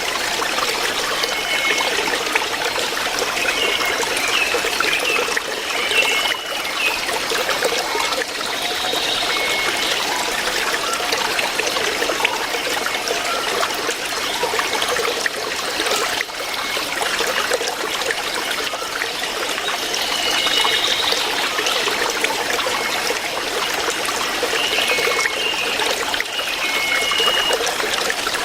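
River water flowing steadily, with short high chirps now and then.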